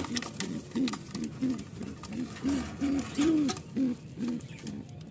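Domestic pigeons cooing: a steady run of short, low, arched hoots, a little more than two a second, with a few faint clicks from the nest bowl being handled.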